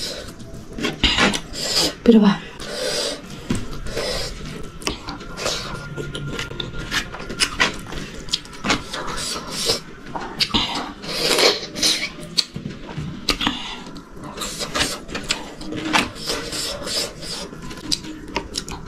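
Close-miked eating: fingers scraping and mixing rice against a baking tray, with chewing and wet mouth clicks throughout.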